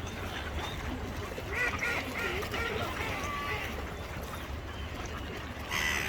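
Ducks quacking: a run of short calls from about a second and a half in, and another call near the end, over a steady low rumble.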